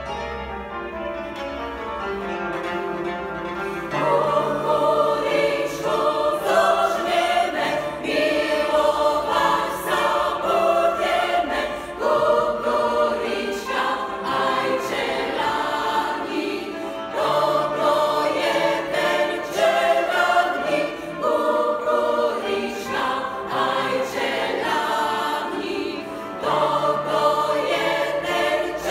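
A cimbalom plays alone for the first few seconds, then a women's choir comes in about four seconds in, singing a folk-style song in several parts over the cimbalom.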